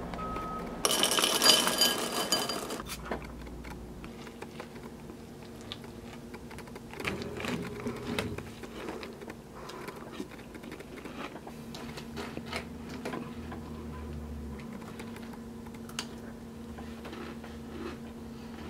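Someone eating cereal from a ceramic bowl: a spoon clinks against the bowl in scattered small clicks, with a louder rattling clatter about a second in, over a steady low hum.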